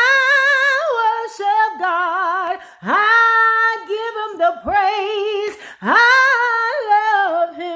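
A woman singing a gospel refrain unaccompanied, holding long notes with vibrato. She sings three phrases, each opening with an upward slide into the note: one at the start, one about three seconds in and one about six seconds in.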